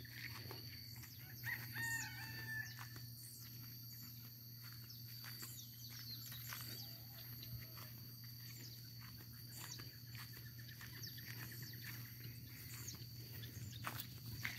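A rooster crowing once, faintly, about two seconds in.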